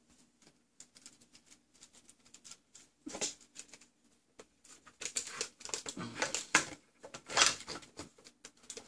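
Large plastic NECA ED-209 action figure being handled and posed: scattered light clicks of its plastic joints and parts, with several louder rubbing and scraping handling sounds in the second half.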